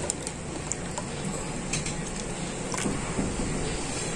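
Steady, even background noise with a few faint light clicks.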